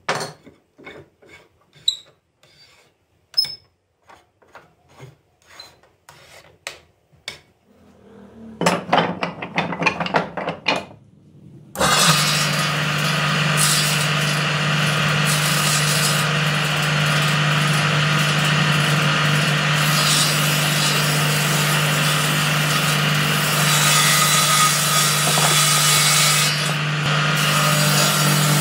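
Hand rubbing strokes on the wooden fence of a table saw, quicker and denser after about eight seconds. About twelve seconds in, the table saw motor is switched on and runs steadily with a low hum and the blade's whirr.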